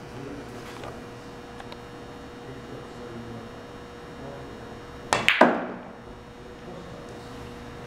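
Pool cue tip striking the cue ball: a sharp clack with a couple of quick clicks and a short ring, about five seconds in.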